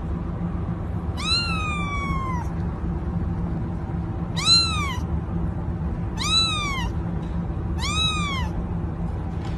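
A domestic cat meowing four times, the first call long and falling in pitch, the other three shorter, each rising then dropping. A steady low hum runs underneath.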